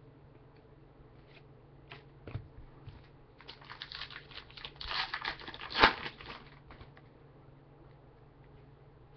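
A trading card pack's wrapper being torn open and crinkled by hand: a few light clicks and rustles, then about halfway through a couple of seconds of dense crinkling and tearing, with one sharp tear at the loudest point.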